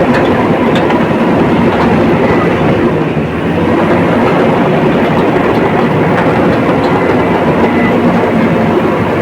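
Komatsu D85ESS crawler bulldozer working, its diesel engine running loud and steady with a short dip in level about three seconds in.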